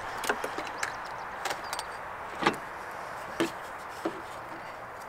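Half a dozen light clicks and knocks of hands handling parts around a car's valve cover in the engine bay, the loudest about halfway through, over a steady background hiss.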